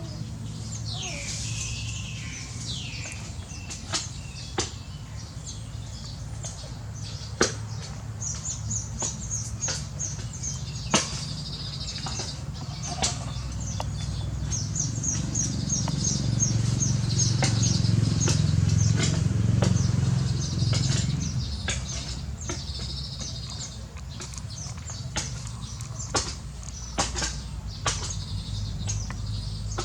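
A colony of small birds chattering in rapid, high trills that come again and again, with scattered sharp clicks. A low rumble swells through the middle and then fades.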